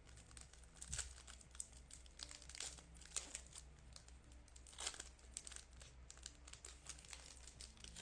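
Baseball card pack wrapper crinkling and tearing as it is opened, in many short irregular crackles with a few sharper ones, over a faint low hum.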